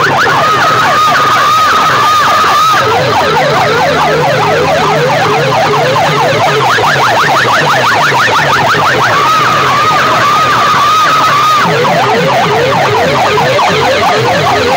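Massed horn loudspeakers of a DJ sound rig blaring an electronic siren effect at full volume: fast repeated pitch sweeps, twice breaking into a warbling tone, over a low pulsing bass.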